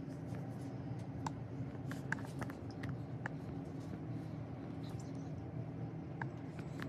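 Steady low mechanical hum, with scattered light clicks and ticks over it.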